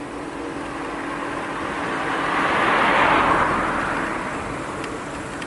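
A car driving past: a rush of tyre and engine noise that rises to its loudest about three seconds in, then fades away.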